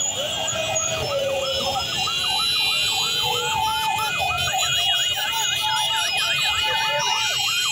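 Electronic sirens sounding in a fast yelp, about three rising-and-falling sweeps a second; a second siren joins a little past halfway, overlapping the first, over a low rumble of motorcycle engines.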